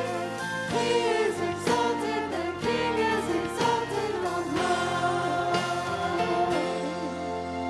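Church music: voices singing with vibrato over sustained instrumental chords.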